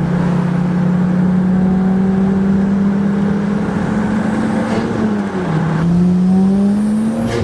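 Turbocharged BMW E30 engine pulling under acceleration. Its pitch climbs steadily, drops sharply on an upshift about five seconds in, then climbs again and drops on another shift at the end.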